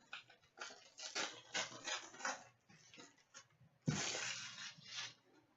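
A hockey card pack being opened and its cards handled: a run of short crinkling rustles, then a louder, longer rustle about four seconds in.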